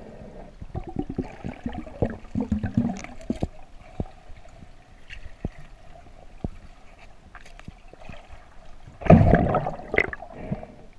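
Underwater sound picked up by a camera held close to a lake bottom: water gurgling and sloshing with many irregular clicks and knocks, thickest in the first few seconds, and a louder gurgling rush about nine seconds in.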